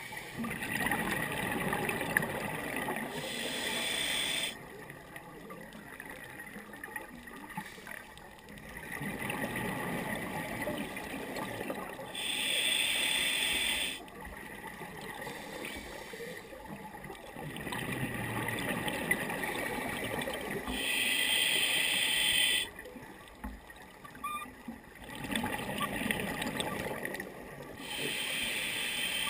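Scuba diver breathing through a regulator underwater: slow breaths about every nine seconds, each a rumbling, gurgling exhale of bubbles and a short hiss of air through the regulator, four times in all.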